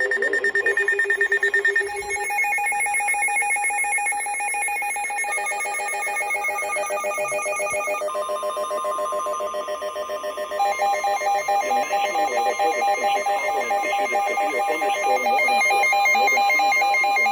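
Emergency weather alert tones from alert receivers: several overlapping electronic tones and fast-pulsing beeps that shift pitch every few seconds. About eight seconds in, a steady tone near 1 kHz joins them and holds for about ten seconds, signalling that the next warning is coming.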